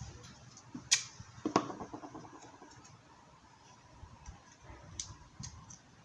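Sharp knocks of hard objects being handled and set down on a workbench. The second knock leaves a short metallic ring that fades over about a second and a half, and lighter clicks follow near the end as wires are handled.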